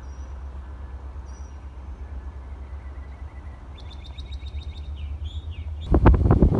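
Birds chirping over a steady low rumble, then about six seconds in, a sudden loud burst of wind buffeting the microphone.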